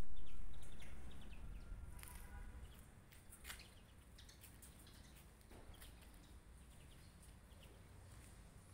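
Quiet outdoor ambience with faint bird chirps and a few scattered sharp taps. A low rumble at the start fades away over the first three seconds.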